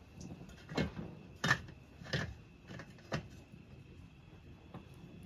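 Four knocks, about three-quarters of a second apart, the second the loudest, over a faint steady high tone.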